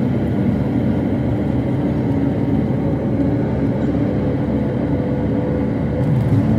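Jet airliner heard from inside the cabin during the landing roll: a loud, steady roar of the engines and rushing air as it runs along the runway.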